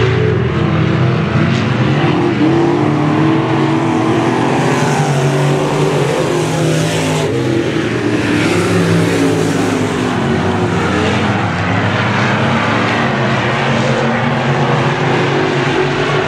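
A pack of street stock race cars running laps on a dirt oval, their engine notes rising and falling together as they go through the turns and down the straights.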